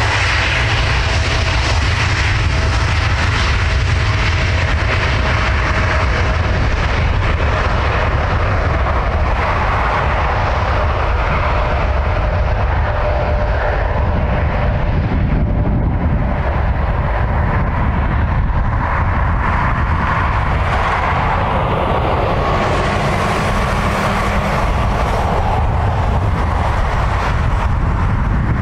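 Boeing 787-8 Dreamliner's twin turbofan engines at takeoff thrust: a loud, steady jet noise with a deep rumble as the airliner accelerates down the runway for takeoff.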